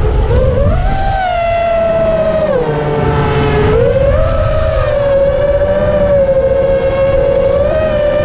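FPV freestyle quadcopter's brushless motors and propellers whining as heard from the onboard camera, the pitch rising and falling with the throttle: up about a second in, down for a moment past the two-second mark, then back up and fairly steady. A low rumble runs underneath.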